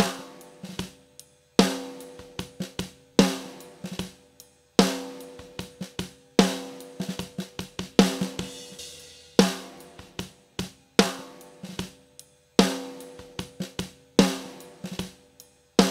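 Recorded drum kit played back from a mixing session, its live snare layered with an EQ'd snare sample sent to reverb. The pattern repeats: a loud hit about every second and a half, with lighter snare and hi-hat hits between.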